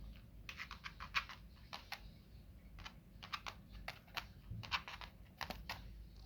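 A run of light, irregular clicks and taps, some coming in quick clusters of two or three.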